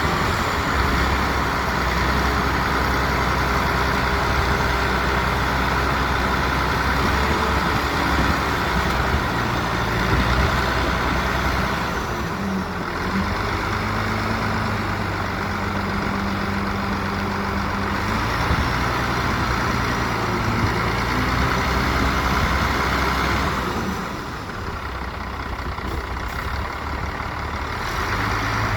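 Diesel engines of heavy earthmoving machinery (dump trucks and a bulldozer) running continuously, their pitch shifting partway through and the level dropping near the end.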